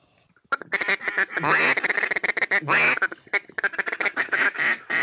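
Duck calls blown by hunters: runs of rapid clucking chatter and strings of loud quacks, starting about half a second in.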